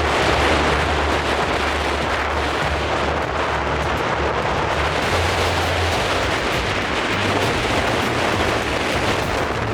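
Strong hurricane wind blowing on the microphone: a steady loud rush with uneven low rumbling buffets underneath.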